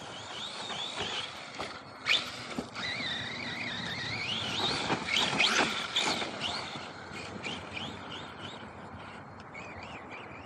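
RC monster truck running on a brushless electric motor, its whine rising and falling with the throttle, with a couple of sharp knocks about two seconds in. The whine is loudest a little past the middle.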